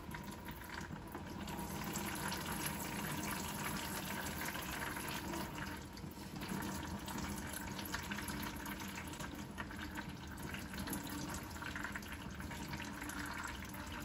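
Transmission fluid pouring in a thin, steady stream from a loosened transmission pan into a plastic bucket.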